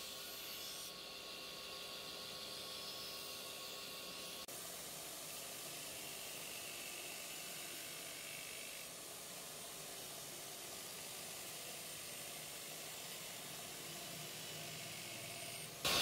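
The edge of a stainless steel folding knife blade held against a spinning grinding wheel, making a steady grinding hiss.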